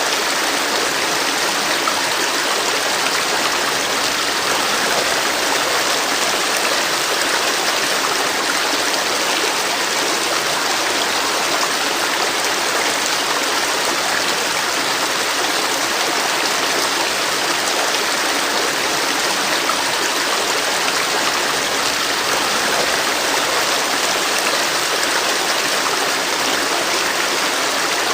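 River water flowing and splashing steadily, a constant rushing of running water over stones.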